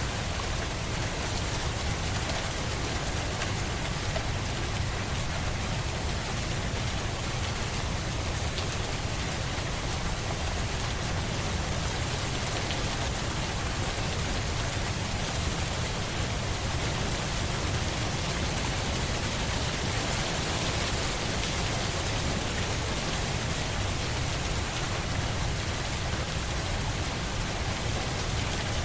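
Steady rain falling: an even hiss with a low rumble beneath it, unchanging in level.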